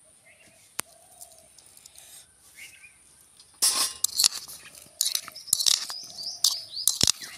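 Steel fork stirring and scraping through boiled diced potatoes in a bowl, mixing in black salt: a single click in a quiet opening, then repeated scrapes and clinks of fork on bowl from about three and a half seconds in.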